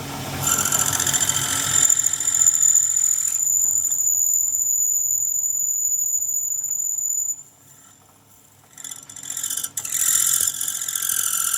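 Steady, high-pitched squeal of a machine working on metal. It cuts out about seven seconds in and comes back a second or so later.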